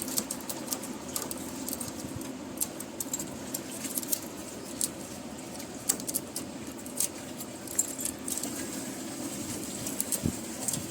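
Scattered small clicks, taps and scrapes of hand work on an air conditioner part, over a steady low hum.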